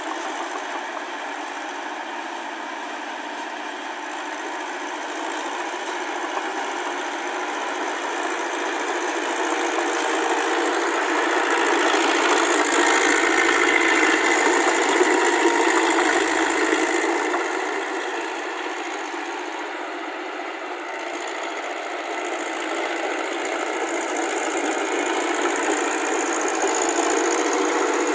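Tracked Massey Ferguson tractor's diesel engine running steadily while it pulls a rotary tiller through wet paddy mud. It grows louder from about a third of the way in, eases off past the middle, and swells again near the end.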